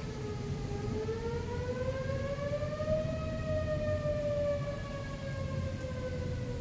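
Outdoor tornado warning siren wailing: one steady tone that dips slightly, rises slowly to a peak about halfway through, then sinks again. A steady low rumble runs underneath.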